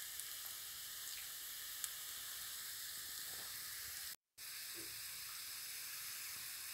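Chopped garlic sizzling in hot oil in a nonstick wok, a steady, fairly faint hiss. The sound cuts out completely for a moment about four seconds in.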